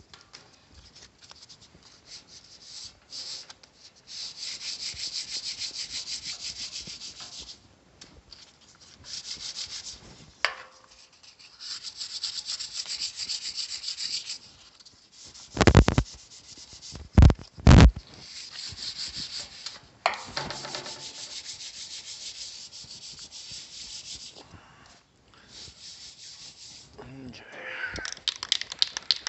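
Hand sanding on the welded steel of a tractor loader bucket: bursts of quick back-and-forth scratchy strokes with pauses between, feathering out the paint edges around the new weld ahead of painting. A few loud thumps a little past the middle.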